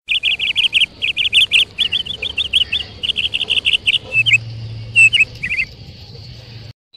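Small songbird chirping: a fast run of short, high chirps, several a second, then a few slower, separate calls, stopping abruptly near the end.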